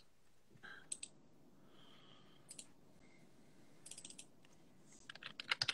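Faint clicks of typing on a computer keyboard, a few scattered keystrokes, then a quicker run near the end.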